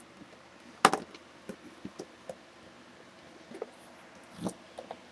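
Plastic eggs and small plastic toys handled on a tabletop: a sharp click about a second in, a few light taps, then another knock near the end.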